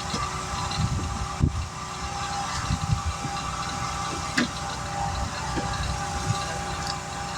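A motor running steadily with a low rumble and a constant hum, broken by a few light knocks about one and a half and four and a half seconds in.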